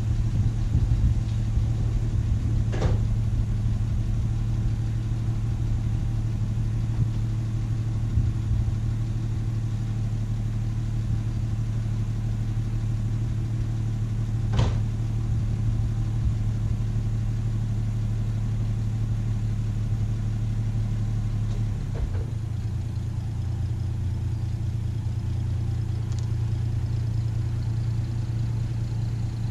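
Plymouth Valiant's 225 slant-six engine idling steadily while it warms up after a long lay-up; the owner thinks it probably needs a valve adjustment. Near the end the engine note changes as the car is put in gear and begins to roll out of the garage.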